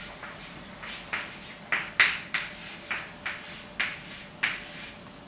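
Writing: a run of short scratchy strokes, about two a second, the loudest about two seconds in.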